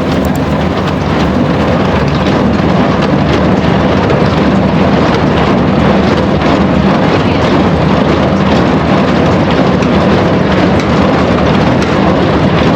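Tractor and small square baler running, a loud steady mechanical din with a low engine note underneath.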